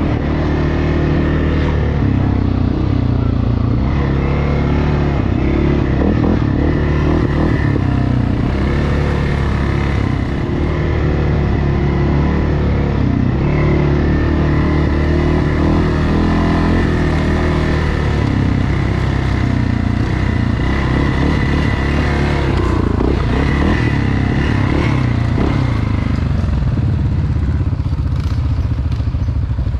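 ATV engine running continuously under way, its pitch rising and falling with the throttle.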